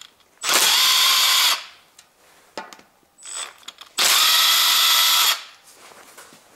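Cordless Makita impact driver with a 10 mm socket spinning out camshaft bearing cap bolts on a Toyota 2ZZ-GE cylinder head, in two runs of about a second each, the second a little longer, with light clicks between them.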